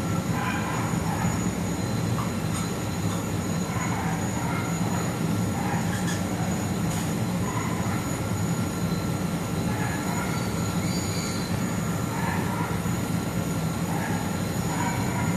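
LG air-conditioner compressor running with a steady low hum and thin, high steady tones above it, plus an uneven hissing that comes and goes.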